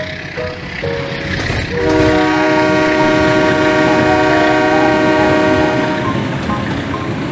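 Train horn sounding one long, steady chord for about four seconds, over a rumbling train-running noise, with a simple stepping melody of background music before and after it.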